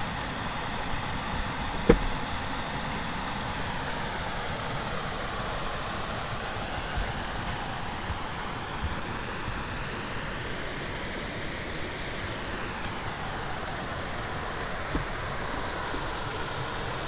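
Steady road and engine noise inside a moving car, with one sharp knock about two seconds in.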